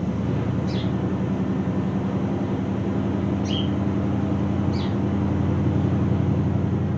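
An engine running steadily with a fast, even pulse, with a few short high chirps over it.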